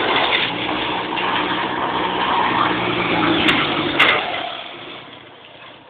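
Go-kart's Fiat 126p air-cooled two-cylinder engine running loud and rough, then fading away toward the end as the kart moves off. Two sharp clicks come about three and a half and four seconds in.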